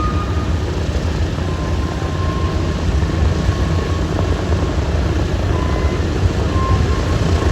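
Boeing B-17 Flying Fortress's Wright R-1820 Cyclone radial engines running at a steady, deep drone.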